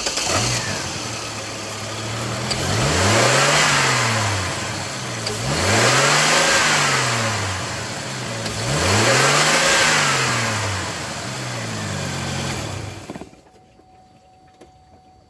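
Chevy Trailblazer engine running with the fan clutch removed, revved up and back down three times, then going quiet near the end. No loud fan whine comes with the revs, which marks the fan clutch as the source of that whine.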